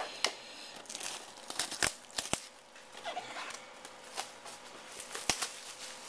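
Cellophane wrap being cut with a knife and peeled off a cardboard product box, crinkling and tearing, with several sharp clicks.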